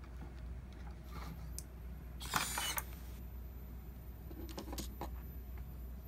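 Handling noise over a steady low hum: a few faint clicks, a brief rustle about two and a half seconds in, the loudest sound, and a couple of short knocks near the five-second mark.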